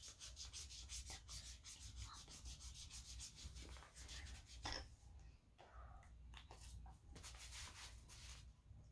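Yellow felt-tip marker scribbling on paper, faint quick back-and-forth strokes, several a second; the scribbling stops about five seconds in and starts again briefly near the end.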